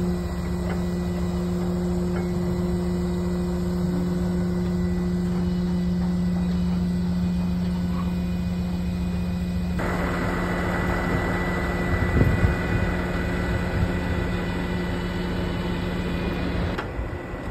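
Heavy rotator wrecker truck's engine running steadily, a constant low hum. About ten seconds in, a louder rushing noise joins it, with a few knocks a couple of seconds later.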